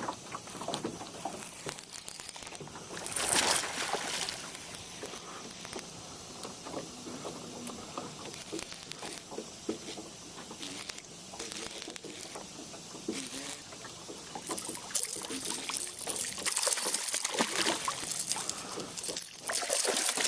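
Water splashing and trickling, with two louder surges of splashing, about three seconds in and again near the end.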